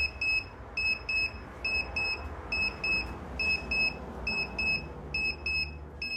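Alarm of a DIY kit digital LED clock going off as it reaches the set time: its buzzer gives high-pitched double beeps, beep-beep, about one pair a second.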